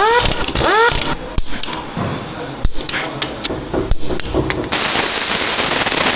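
Workshop tool sounds: a couple of high squeaking chirps, then scattered sharp knocks and taps of tools on metal. About three-quarters of the way through, these give way abruptly to a steady rushing noise.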